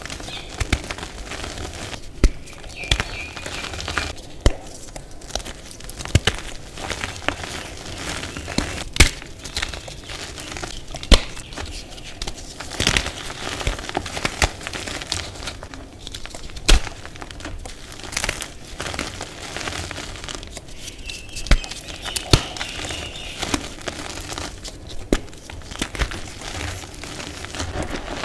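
Hands crushing and crumbling thick blocks of reformed gym chalk over loose chalk powder: a steady dusty crunching, broken by frequent sharp snaps as chunks crack apart.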